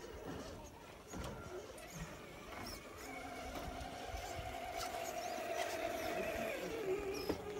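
RC rock crawler's electric motor and geared drivetrain whining steadily as it crawls under load, with a few light knocks of the tires on wood at first. Near the end the whine drops to a lower pitch as the motor slows.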